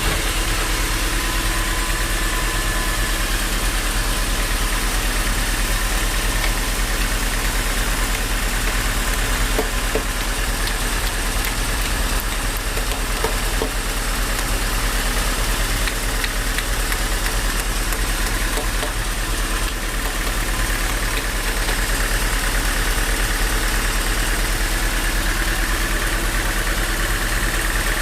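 Band sawmill machinery running steadily with an even engine-like drone and hum.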